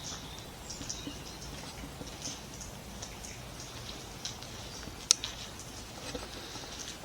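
Footsteps in a tunnel: faint scattered crunches and ticks, with one sharp click about five seconds in.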